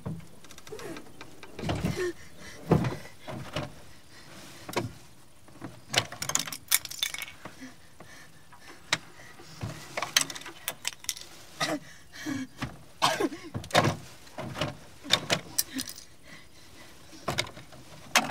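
Irregular knocks, clunks and metallic clatters from inside a car's boot as its lid is pushed open and someone moves about in it, bumping against the car body.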